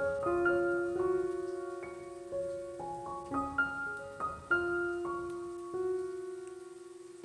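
Background piano music: a gentle melody of single struck notes, each ringing and slowly fading.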